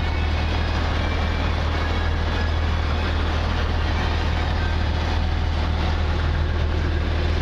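A steady, unchanging low rumble with hiss over it: the drone of a running vehicle.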